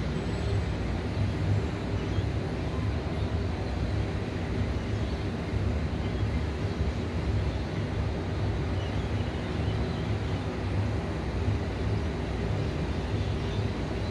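Steady low city hum heard from high above the streets: a constant rumble with a faint droning hum over it and no single event standing out.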